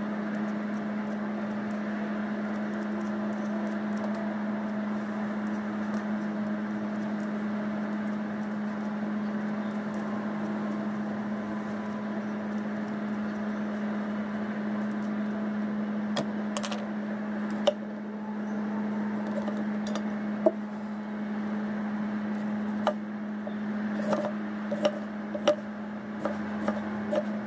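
Steady low hum with a kitchen knife on a wooden chopping block: in the second half, scattered sharp knocks of the blade against the block, coming more often near the end as a beetroot is cut.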